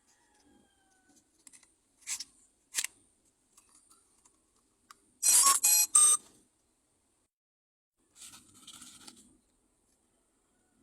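Packaging and parts being handled: a few sharp clicks, then a loud burst of rattling, crinkling noise about five seconds in lasting about a second, and softer rustling near the end.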